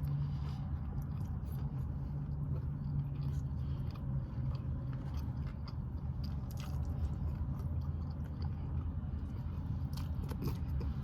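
A person chewing a mouthful of taco close to the microphone: small wet clicks and smacks keep coming. A steady low hum runs underneath.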